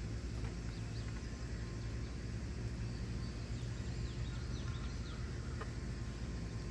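Backyard ambience: a steady low rumble, with faint high chirps of small birds now and then and a couple of faint clicks.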